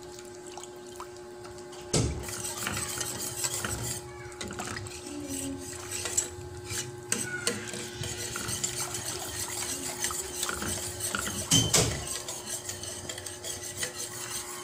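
Wire whisk stirring a cornstarch sauce in a stainless steel pot over the heat, metal scraping and clinking against the pot without pause. It starts with a sharp knock about two seconds in, and there is another knock near the end.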